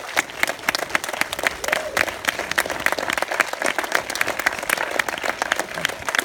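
Audience applauding in a cinema auditorium, with one pair of hands clapping close by standing out sharply over the general applause.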